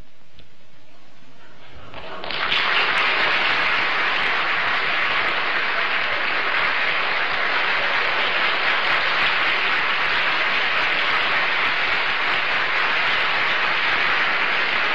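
Studio audience applauding, starting suddenly about two seconds in and going on steadily.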